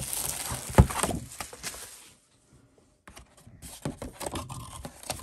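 Cardboard and plastic packaging of a trading-card hobby box being torn and pulled open: crinkling and rustling with a sharp knock about a second in, then a short pause and lighter clicks and crackles.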